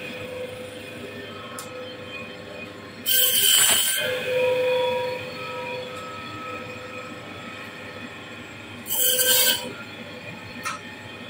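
Electric band saw running with a steady whine, its blade sounding loudly twice, about three and nine seconds in, as it cuts through a large fish.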